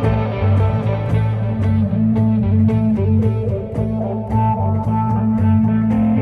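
Band music without vocals: guitars over a bass line, with a steady beat of cymbal-like ticks.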